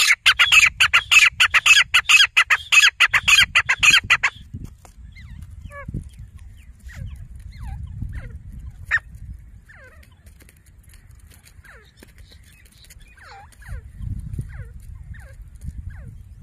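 Grey francolin calling: a loud, rapid run of harsh repeated notes, several a second, for about four seconds, then stopping abruptly. After that only faint scattered chirps over a low rumble remain.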